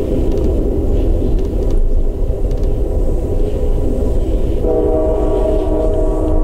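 Steady rumble of trains running on the rails as a freight train passes alongside on the next track. About two-thirds of the way through, a train horn starts sounding a steady multi-note chord and holds it.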